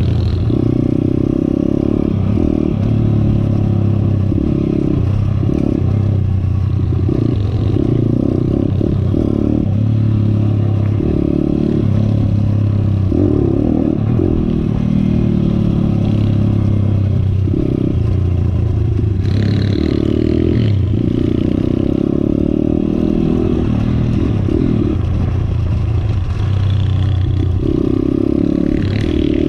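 Small single-cylinder dirt motorcycle running over a rutted dirt track, heard from the riding bike, its engine note rising and falling as the throttle is worked every second or so. The bike rattles and clatters over the bumps, harshest about twenty seconds in and again near the end.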